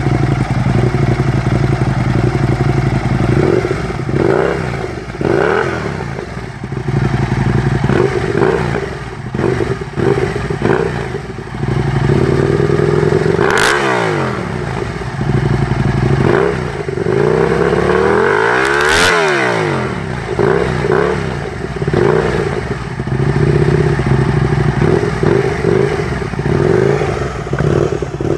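Aprilia Tuono 1000 engine running through Mivv slip-on silencers with their baffles removed, idling and being blipped again and again. Two long, high revs stand out, just under halfway through and again about two-thirds through.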